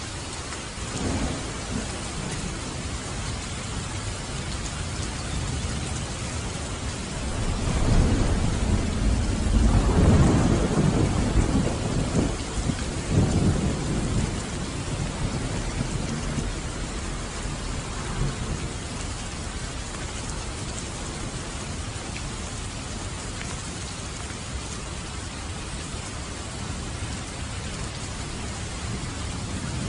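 Steady rain with a long roll of thunder that swells about seven seconds in, peaks over the next several seconds and rumbles away, with a brief low rumble about a second in.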